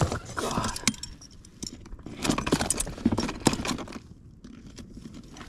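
Clicks, knocks and scrapes of a freshly landed tarakihi and its fishing tackle being handled on the floor of an inflatable boat.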